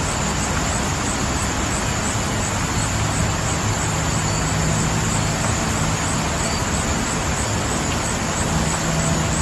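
Wind and road noise of a car driving at speed with a window open: a steady rushing noise over a low, even drone.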